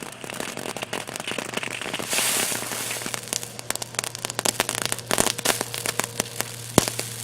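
Small firework going off: rapid, irregular crackling pops with a short hiss about two seconds in and one sharper crack near the end.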